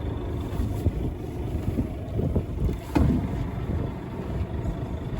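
Steady low rumble of a fishing boat's engine running at sea, with wind on the microphone; a short faint voice-like sound about three seconds in.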